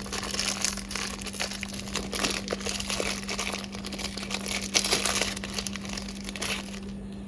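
Packaging crinkling and rustling as it is handled and opened, in a dense run of small crackles that stops shortly before the end, over a steady low hum.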